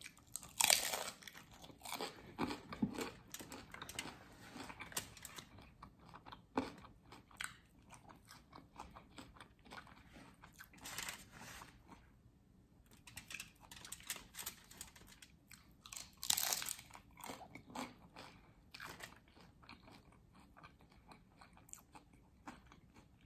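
Close-up eating sounds: crunchy bites into fried corn-tortilla tacos and irregular crunchy chewing, with a few louder crunches about a second in, around the middle and about two-thirds of the way through.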